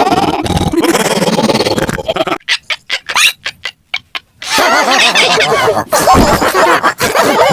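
Heavily effects-processed cartoon audio: distorted character voices, chopped into a rapid stutter of short bursts with gaps from about two and a half to four and a half seconds in.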